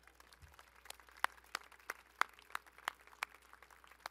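Faint, sparse hand clapping: a few sharp claps about three a second, greeting a speaker who has just been introduced.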